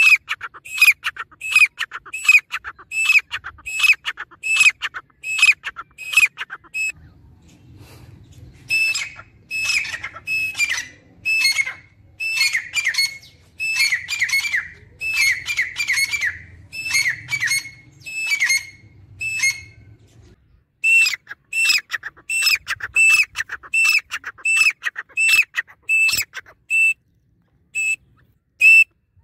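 Grey francolin (teetar) calling: a long run of short, loud, high notes repeated about twice a second. In the middle stretch the calls come faster and overlap over a faint low rumble, then settle back into the even run.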